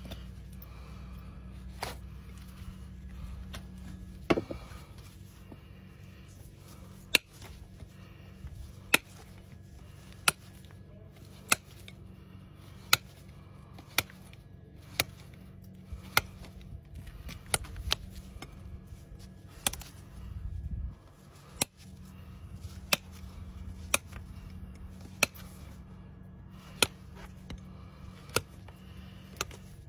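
Hoof knife paring a horse's hoof, a short sharp snick with each cut, about one every second and a half, over a low steady hum.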